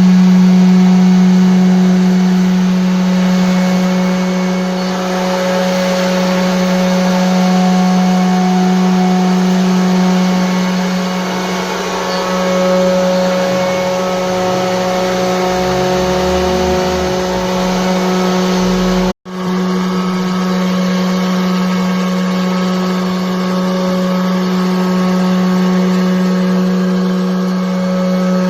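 CNC router cutting wood: the spindle runs with a steady hum under a constant cutting noise. The sound cuts out for an instant about two-thirds of the way through.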